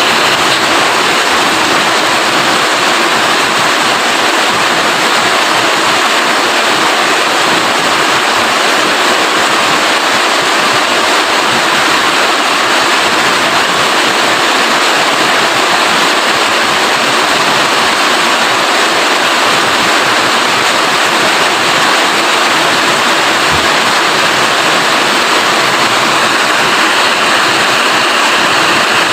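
Rain falling steadily: a dense, even hiss that keeps the same level throughout.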